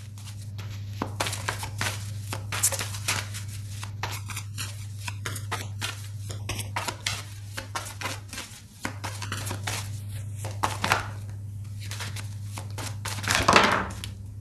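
Tarot cards being shuffled and handled: a rapid run of papery snaps and rustles, with a louder sweep near the end, over a steady low hum.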